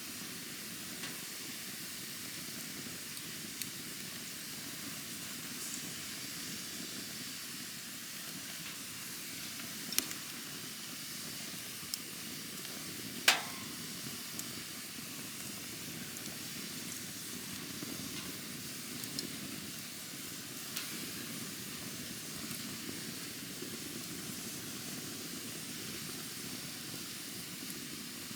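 Campfire burning with a steady hiss and a scattering of sharp crackles and pops, the loudest about halfway through.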